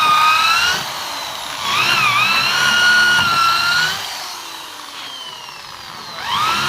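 Electric drill boring into the wood of a window frame: the motor whine runs briefly, stops, runs again for about two seconds with its pitch sagging as the bit bites, winds down with a falling pitch, and starts up again near the end.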